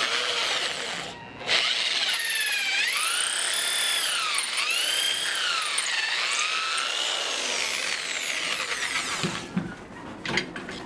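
Corded electric hand drill boring a hole through a wooden bracket held in a vise. The motor runs, stops about a second in, then starts again and runs for about eight seconds, its whine repeatedly dipping and rising as the bit loads up in the wood and is eased off. It stops near the end, followed by a few light clicks of handling.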